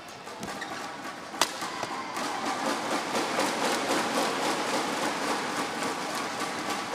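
Badminton hall crowd noise: a single sharp racket strike on the shuttlecock about a second and a half in. After that comes a rising crowd din with quick, even clapping at about four or five claps a second.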